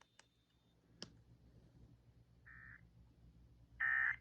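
Emergency Alert System end-of-message data tones: two short, buzzy bursts of digital warble about a second apart, the second louder, marking the end of the alert. A faint click about a second in, over a low hum.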